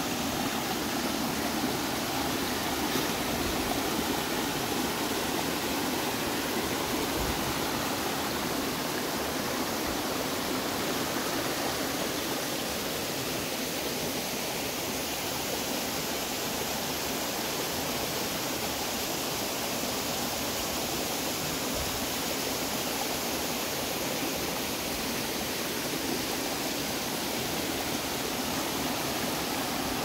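Mountain creek water running and splashing over rocks in small cascades, a steady even rush.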